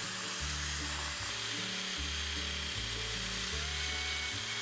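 Drill turning a countersink bit into a thin metal strip: a steady high-pitched whine with cutting hiss, which stops just at the end. Background music with a low bass line plays underneath.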